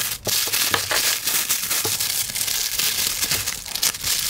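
Plastic packaging crinkling and rustling as a clear plastic bag around a tape roll and a poly mailer are handled, with many small crackles throughout.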